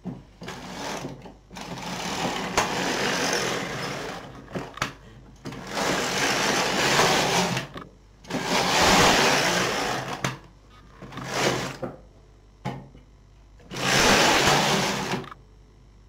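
Carriage of a single-bed domestic knitting machine pushed back and forth along the needle bed, six passes of up to about two and a half seconds each with short pauses between, knitting a few rows of waste yarn to close off the finished panel.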